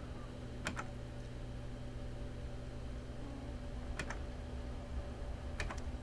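A few computer keyboard key presses, single and in quick pairs, over the steady hum of a Dell XPS 720 desktop's fans running, which sound a bit loud.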